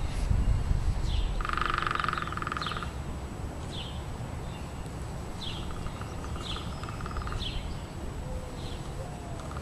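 Outdoor birdsong: short, high falling chirps about once a second, with a rasping, rapidly pulsed call twice, and low wind rumble in the first two seconds.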